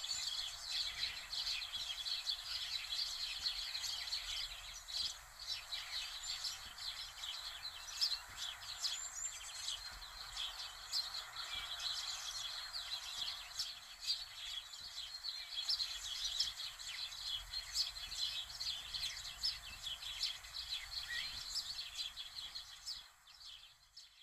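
Many birds chirping in a dense, continuous chorus over a soft steady hiss, fading out near the end.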